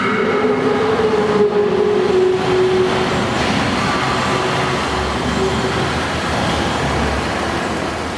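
Wuppertal Schwebebahn suspended monorail train running, a steady mechanical noise with a whining tone that fades out after about three seconds. A low rumble swells in the second half.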